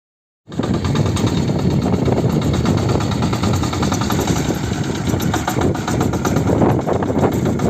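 Engine of a sanedo, a motorcycle-based jugaad farm tractor, running steadily. The sound cuts in abruptly about half a second in.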